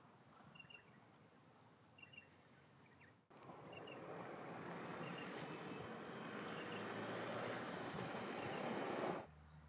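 Outdoor ambience with small birds chirping. About three seconds in, a louder steady rushing noise starts, swells gradually and cuts off abruptly near the end.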